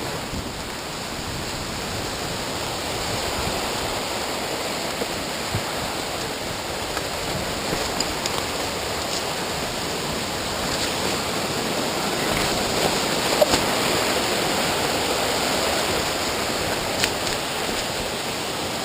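Steady rushing of a river's flowing water, growing slightly louder past the middle, with a few faint clicks.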